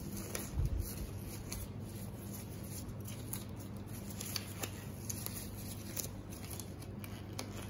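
Disposable examination gloves being pulled onto the hands, giving soft rustles and small scattered crinkles and snaps, with a couple of low thumps in the first second. A steady low hum runs underneath.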